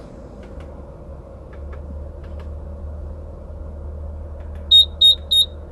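Three short, high-pitched confirmation beeps from the Bobcat E85's deluxe instrument panel keypad as its buttons are pressed near the end, preceded by a few faint clicks, over a steady low rumble.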